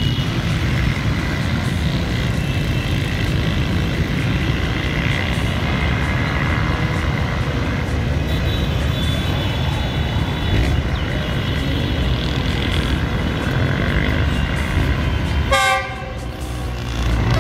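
Approaching GE U20 diesel-electric locomotive hauling a passenger train: a steady low rumble that grows as it nears, with faint horn tones midway and one short, loud horn blast near the end.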